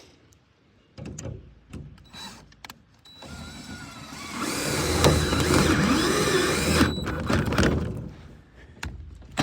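Cordless drill driving a self-tapping screw into metal, running for about four seconds with its pitch wavering under load, after a few light handling clicks.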